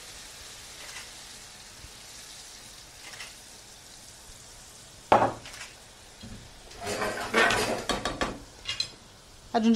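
A frying pan of salmon in butter sizzling steadily, with a sharp clack of a utensil against the pan about five seconds in, then a stretch of stirring with metal clinking and scraping on the pan.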